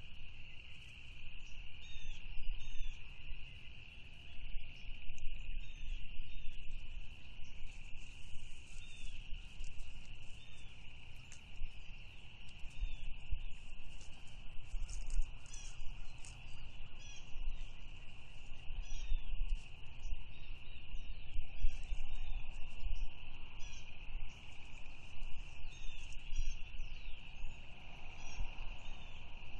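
A steady high insect trill, like crickets, with many short bird chirps over it and wind rumbling on the microphone.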